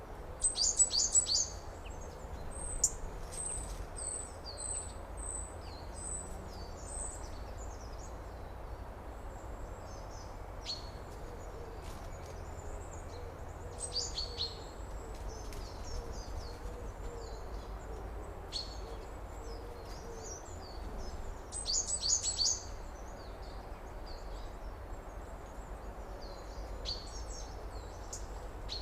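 Several songbirds chirping and calling in summer ambience, with loud clusters of rapid chirps about a second in and again about three-quarters of the way through, over a steady low rumble.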